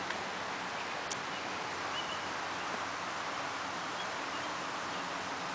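Steady outdoor background hiss, as of air moving through trees, with one faint click about a second in.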